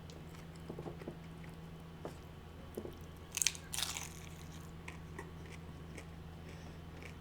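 Close-miked crunch of a bite into tortilla-chip nachos: small mouth clicks, then one loud crunch about three and a half seconds in and softer chewing after, over a steady low hum.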